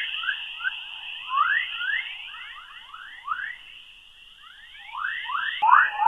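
Whistler-mode 'chorus' radio waves, emitted by energetic particles in Earth's magnetosphere, picked up by NASA's Radiation Belt Storm Probes and played as audible sound. It is a string of short rising chirps, like birds chirping, over a steady hiss. The chirps come denser and louder near the end.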